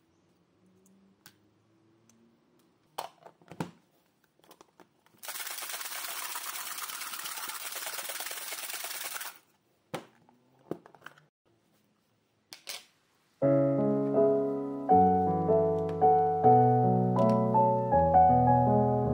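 Faint clicks and taps of small plastic keyboard switch parts and containers being handled, with a steady hiss lasting about four seconds. About two-thirds of the way through, lo-fi piano music comes in and is the loudest sound.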